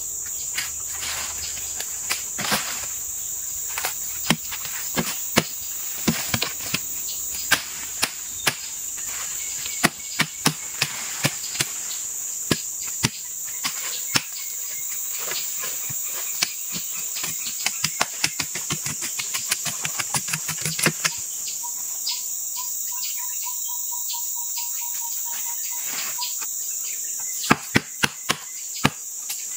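Steady high drone of rainforest insects, broken by many sharp knocks on a wooden log, coming in quick irregular runs through the first twenty seconds, then sparsely, then a short quick run near the end.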